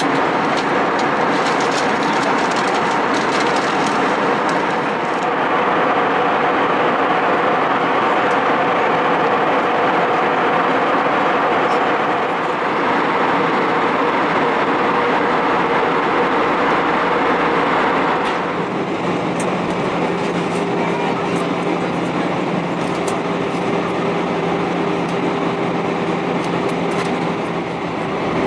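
Steady cabin noise of an Airbus A320 airliner in flight: an even rushing hum with a few steady engine tones in it. It shifts in character a few times, most clearly about two-thirds of the way through.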